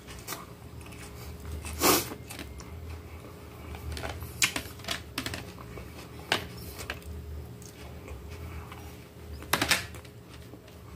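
Metal cutlery clicking against the plate as food is picked up and scooped: a handful of sharp clicks a few seconds apart, the loudest about two seconds in, a close pair near the end.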